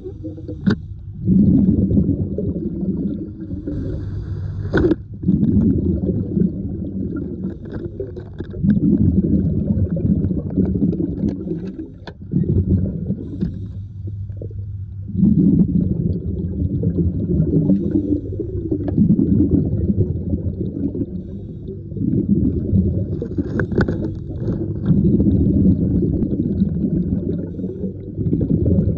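Muffled, low rumbling and gurgling water heard underwater, swelling and easing every two to three seconds, with a few sharp clicks.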